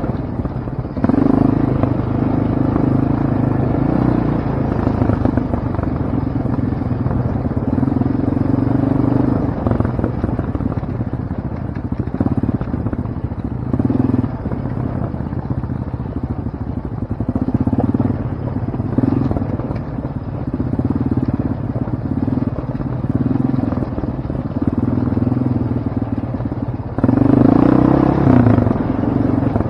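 Off-road vehicle engine running under way on a rocky dirt trail, growing louder and softer in turn with the throttle, loudest briefly near the end.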